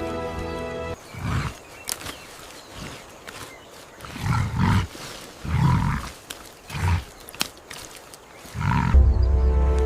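A camel's low, throaty calls, about five short ones over eight seconds. Music stops about a second in and comes back near the end.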